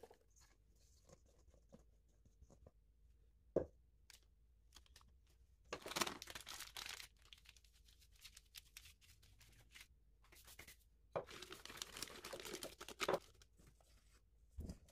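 Disposable plastic piping bag crinkling as it is handled and filled with macaron batter, in two stretches of rustling about six and twelve seconds in, with a sharp single knock a few seconds in and another near the end.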